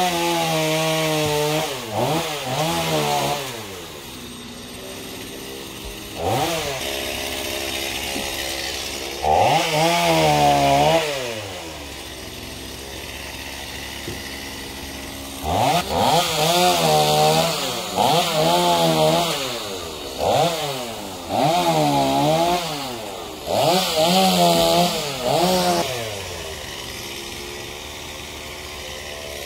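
Gas chainsaw revved in repeated bursts, its pitch climbing and sagging as it cuts through the limbs of a fallen pine, settling back to idle between cuts and again near the end.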